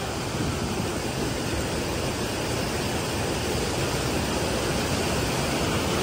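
Fast-flowing mountain river rushing over stones close by: a steady, even rush of water with no break or change.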